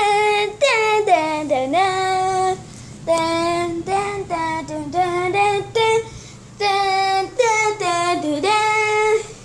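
A child singing in a high voice, in held notes that sometimes slide down, in several phrases with short breaks between them.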